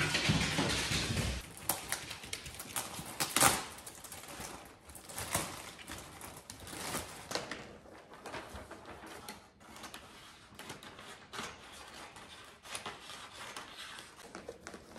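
Wrapping paper rustling and crinkling as rolls are handled and unrolled, with many small clicks and light knocks. It is busiest in the first few seconds, with one louder crackle about three and a half seconds in.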